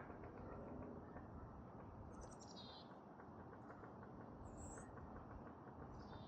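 Faint creaking from a dry, dead standing tree: one low drawn-out creak in the first second. Short high chirps, likely small birds, come three times.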